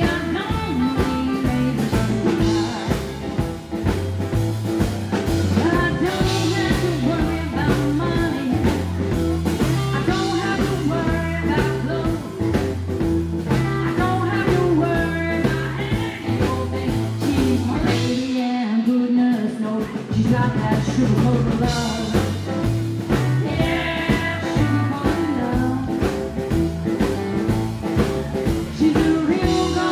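Live rockabilly band playing: a woman singing over electric and acoustic guitars, a walking upright double bass and drums. Just past the middle the bass and drums drop out for about a second and a half, then come back in.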